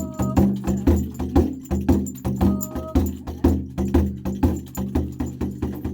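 Music: a steady beat of sharp percussive strokes, about two to three a second, over a low sustained drone, with two short high notes, one at the start and one about halfway through.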